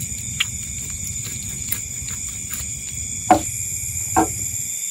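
Night insects droning steadily, over faint scraping clicks and two sharp knocks of a knife against a wooden plank, about a second apart in the second half, while a small fish is cut.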